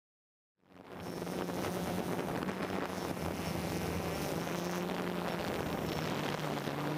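DJI Phantom quadcopter's propellers and motors buzzing steadily, heard from the drone's own camera, with some wind noise on the microphone. The sound cuts in suddenly just over half a second in.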